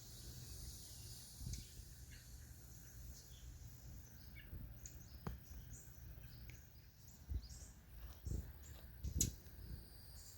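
Birds chirping faintly in short calls, with a few soft thumps now and then.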